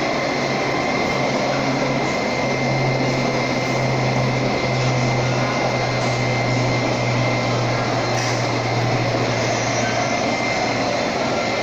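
Milling machine running steadily while cutting the teeth of a helical gear. A constant high whine sits over dense machine noise, and a low hum swells about two seconds in and fades near the end.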